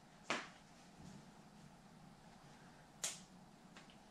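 Two short, sharp clicks about three seconds apart from handling the airsoft gun and its chronograph.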